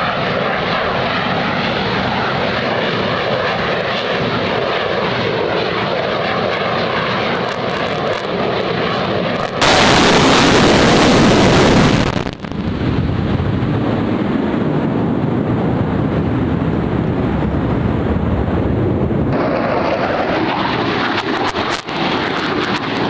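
Jet aircraft engines of a formation flying display, heard as a steady wash of engine noise, with a much louder stretch that starts and stops abruptly about ten to twelve seconds in.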